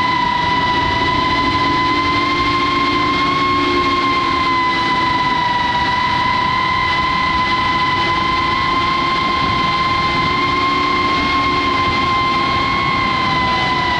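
Cinewhoop FPV drone's motors and propellers whining at a near-steady pitch, wavering slightly with throttle and shifting a little near the end.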